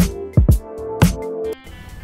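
Intro music with a steady beat of about two deep drum hits a second over held notes, cutting off suddenly about one and a half seconds in.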